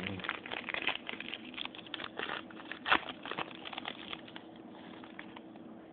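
Foil trading-card pack wrapper crinkling as it is torn open by hand: a quick run of crackles with one louder crackle near the middle, thinning out after about four seconds.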